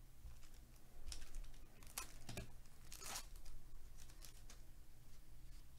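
Foil wrapper of an Upper Deck Goodwin Champions trading-card pack being torn open and crinkled, in a few short rips, the longest about three seconds in.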